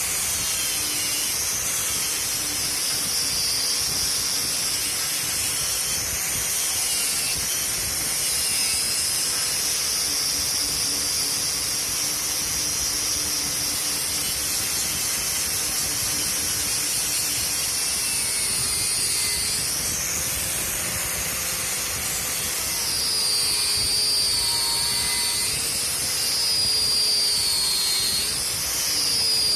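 Bosch GWS angle grinder spinning a sharpened steel wire wheel brush against the end grain of a wooden board, scouring grooves into it. The motor gives a steady high whine over a rasping hiss. From about two-thirds of the way in, its pitch wavers and dips as the brush is pressed harder into the wood.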